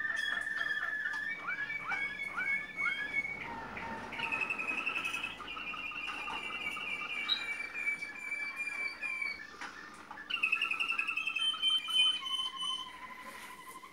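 Malinois (Waterslager) song canaries singing a continuous song of trilled tours that shift in pitch every few seconds, with a run of quick falling notes a couple of seconds in.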